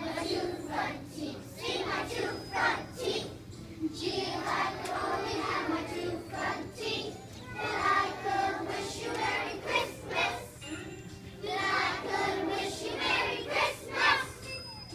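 A choir of young children singing together.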